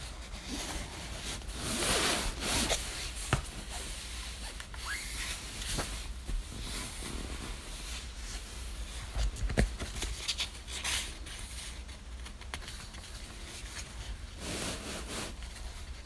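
Soft rustling of a duvet and the paper of a paperback book being handled and moved on a bed, in several irregular bursts, the loudest about two seconds in, with a few short sharp clicks.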